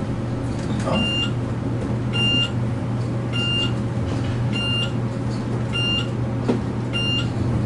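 A short, high electronic beep repeating evenly about every second and a bit inside a Schindler-modernized elevator car, over a steady low hum.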